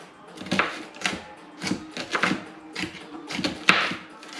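Kitchen knives chopping shallots on a cutting board: a run of sharp knife taps, roughly two a second and unevenly spaced, as two people mince at once.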